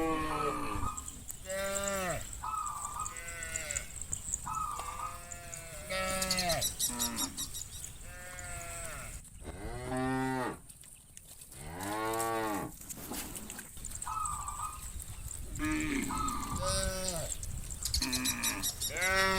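A herd of cattle mooing, call after call with little pause. Long, deep moos that rise and fall in pitch alternate with shorter, higher calls.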